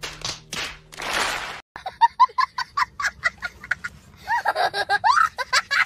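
A couple of short breathy noise bursts, then a child's rapid high-pitched vocal outbursts, several a second, rising and falling in pitch.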